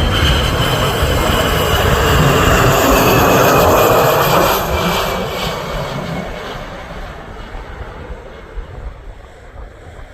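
Jet engines of a KC-135 Stratotanker passing close and then receding, with a whine that falls in pitch as it goes; the sound is loud for the first four seconds or so, then fades steadily.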